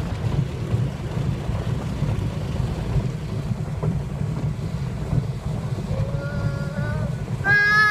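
Automatic car wash heard from inside the car's cabin: a steady low rumble of the wash machinery and water. Near the end a child's high voice rises briefly, then a loud held call.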